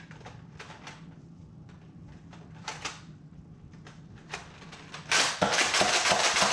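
Nerf Fortnite Tactical Shotgun, a pump-action Mega-dart blaster, being reloaded: scattered plastic clicks and clacks as darts go into its internal magazine. About five seconds in, a loud run of rapid clacks and snaps begins as it is pumped and fired.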